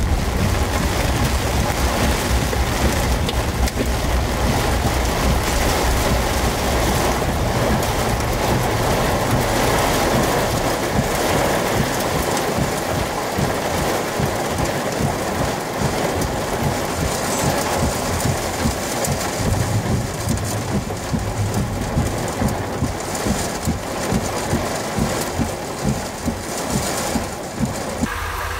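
Heavy thunderstorm rain pounding on a vehicle, with a low rumble of thunder through roughly the first half, then sharper individual hits of rain in the later half.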